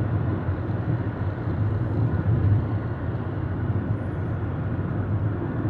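A car driving on a paved road, heard from inside the cabin: a steady low rumble of engine and tyre noise with no distinct events.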